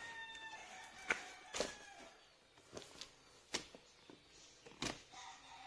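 Somewhat dull scissors snipping and scraping at the packing tape on a cardboard box, giving several sharp, irregular clicks and knocks. A drawn-out, slightly falling call sounds in the background during the first two seconds.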